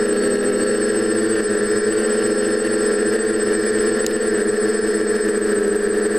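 TBS Discovery quadcopter's four DJI 920Kv brushless motors driving 9x5 propellers in flight: a steady, many-toned buzz that holds its pitch, with a brief click about four seconds in.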